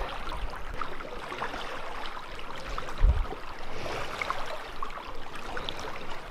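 Lake water lapping and splashing as a canoe is paddled, with small scattered splashes throughout. A short low thump comes about three seconds in.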